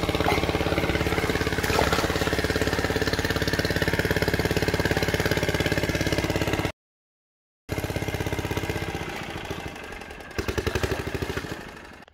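A small engine running steadily with a fast, even pulse. It drops out abruptly for about a second, then returns weaker and fades out near the end.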